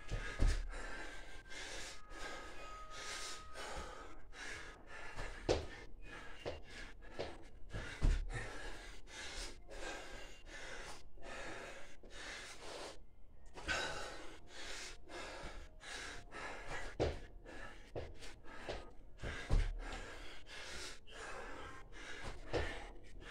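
A man gasping and panting hard for breath in quick, repeated breaths while doing Navy SEAL burpees. A few dull low thumps come from his hands and feet landing on the floor.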